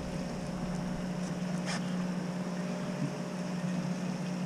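Boat engine idling with a steady low hum, and one faint click about one and a half seconds in.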